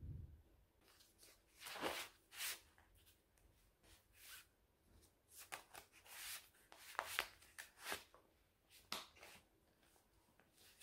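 Faint, irregular rustling and light tapping of something being handled: about a dozen short sounds scattered through the stretch, some crisp taps and some longer rustles.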